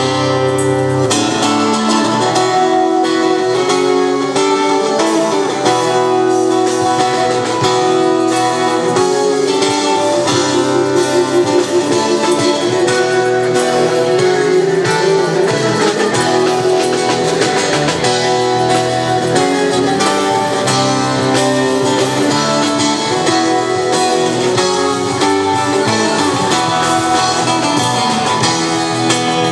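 Guitar playing a melodic lead line over lower notes, with a quick trill about ten seconds in.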